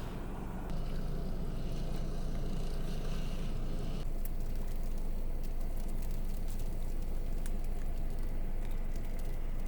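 A vehicle engine running steadily, with a scatter of fine crackling ticks from about four seconds in.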